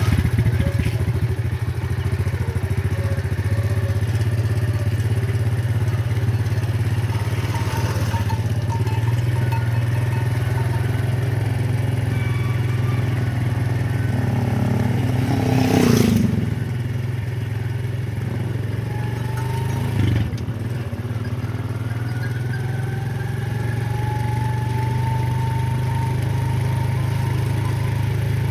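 An engine running steadily with a low, even drone. A brief louder swell comes at about the middle, and a short knock follows a few seconds later.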